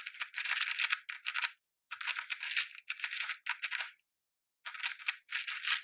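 Plastic 4x4 speed cube, a YJ MGC, being turned quickly by hand: a fast clatter of clicking layer turns in three spells with short pauses between. The cube has just been lubricated and its screws tightened.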